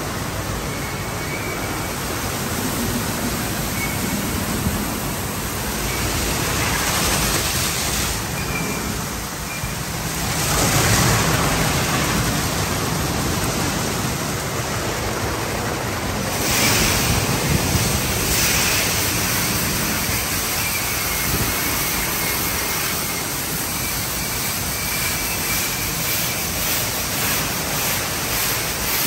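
Conveyor car wash tunnel at work: a steady rush of water spraying onto the vehicle and cloth brushes and curtains rotating against it. The rush swells louder a few times as the car passes different machines.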